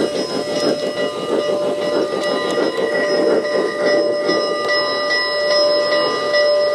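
Steam locomotive whistle sounding one long, steady chord over the rumble of a running train.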